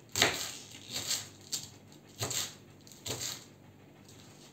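Kitchen knife slicing red cabbage on a wooden cutting board: about six sharp, irregular knife strikes against the board, then a pause in the last second or so.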